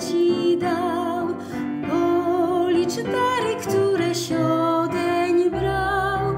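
A woman singing a hymn with long held notes, accompanying herself on a Yamaha electronic keyboard.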